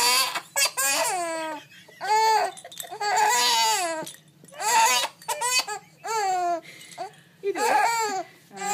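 Baby girl laughing hard in a string of high-pitched, drawn-out squealing bursts, one after another, each about half a second to a second long.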